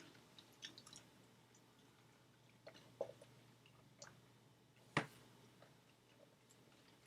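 Faint eating sounds: a few soft, wet mouth clicks and squishes while chewing, with one sharper click about five seconds in.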